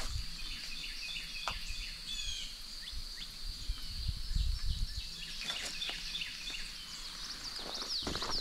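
Woodland ambience: a steady, high-pitched insect drone with birds chirping now and then, and a couple of brief snaps like footsteps on twigs.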